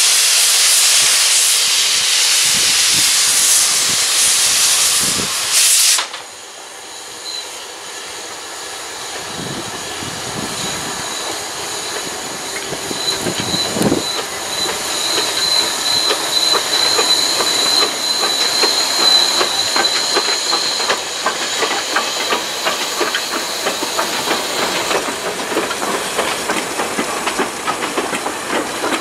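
Mallet steam locomotive running slowly past with its cylinder drain cocks blowing a loud steam hiss, which cuts off suddenly about six seconds in. The train then rolls by with a faint high wheel squeal and a building clatter of wagon wheels over the rail joints.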